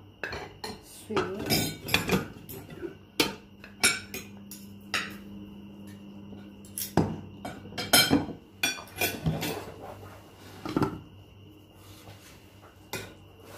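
Metal spoons, knives and forks clinking and scraping against ceramic plates and a bowl during a meal, with plates being handled and set down on the table: a dozen or so sharp, irregular clinks.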